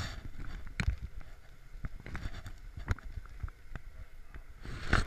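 Racing gloves being pulled on and tugged into place: scattered soft rustles and small knocks at irregular intervals, with a brief louder swish near the end.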